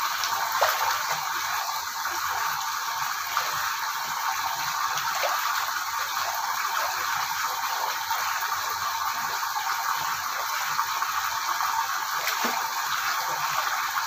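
Water running steadily into a stone-lined soaking pool from an opened tap, a continuous rush, with faint small splashes of water now and then.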